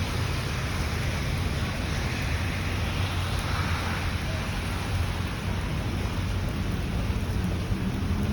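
Heavy rain falling steadily in a summer thunderstorm, an even hiss with a low rumble beneath it.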